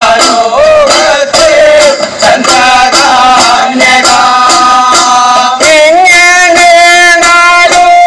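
Ayyappan pattu devotional song: a male voice singing long held notes that waver in pitch over steady percussion strokes, loud throughout.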